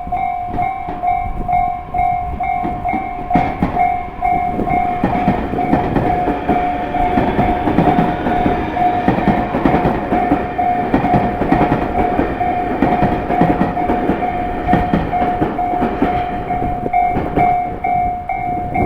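Japanese level-crossing alarm bell ringing steadily at about two strokes a second, while a Tobu Noda Line electric train passes over the crossing, its wheels rumbling and clacking from about three seconds in until near the end.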